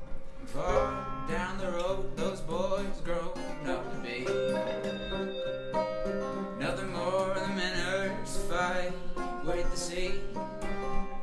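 Instrumental break in a live acoustic folk song: acoustic guitars strummed and picked together, with a wavering, bending lead melody in two phrases over the chords.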